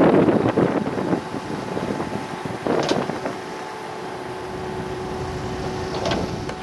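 Wind buffeting the microphone, strongest in the first second, over a faint steady engine hum. A brief sharp sound comes about three seconds in and another near the end.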